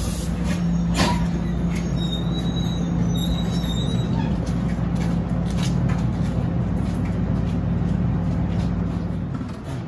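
NJ Transit MultiLevel commuter train standing at the platform, giving off a steady low hum. There is a sharp knock about a second in and a few fainter clicks.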